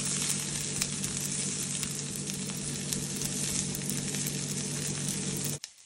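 Chopped onions, garlic and green chillies sizzling in hot oil in a non-stick pan, turned with a silicone spatula, with a steady low hum underneath. The sound cuts off abruptly near the end.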